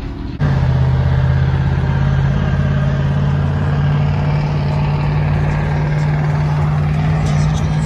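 A motor vehicle's engine running with a steady, unchanging low drone, starting abruptly about half a second in.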